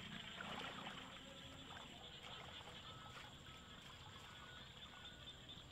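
Faint sloshing and trickling of water as a man wades waist-deep and moves a wet mosquito net through a muddy ditch, a little louder in the first second. A few short, faint high calls sound in the background.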